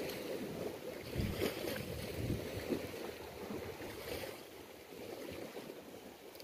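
Wind gusting on the microphone over the wash of sea waves against the rocky shore, with the gusts easing off after about four seconds.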